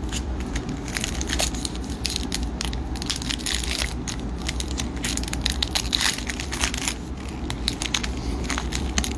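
Crinkling and crackling of a foil trading-card pack wrapper being handled, a dense run of irregular crackles throughout.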